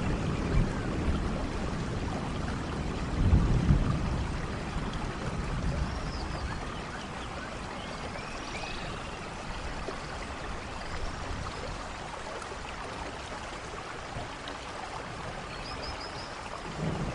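Steady rainfall in a forest, with a low thunder rumble swelling about three seconds in and again near the end. A few short high chirps sound faintly over the rain.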